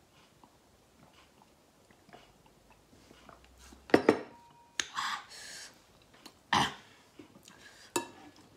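Quiet chewing, then a sharp knock about four seconds in as a wine glass is set on the wooden table, followed by a couple of louder noisy sounds and a spoon clicking against the ceramic bowl near the end.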